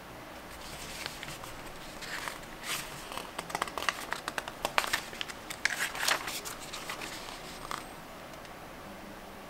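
Paper rustling and crinkling as the pages of a printed booklet are handled: a fold-out page is folded in and the pages turned. Crisp crackles and flicks come from about a second in, are thickest in the middle, and die away near the end.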